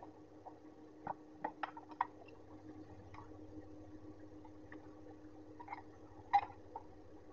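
Light clicks and knocks of plastic and metal parts being handled as a pink USB fan and its wire guard are pulled out of their cardboard box, a cluster of them early and the loudest knock about six seconds in, over a steady low hum.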